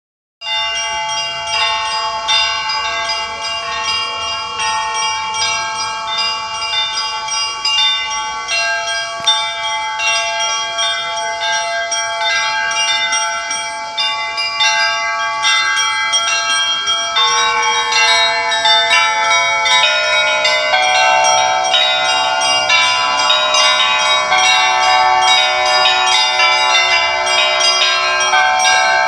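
Church bells ringing a busy peal, several bells of different pitch struck in quick succession. About halfway through, deeper bells join and the ringing grows fuller and louder.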